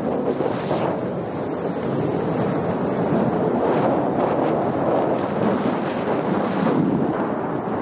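Wind rushing over the microphone while skiing downhill, mixed with the hiss of skis running on packed snow, with a few brighter scrapes as the skis turn.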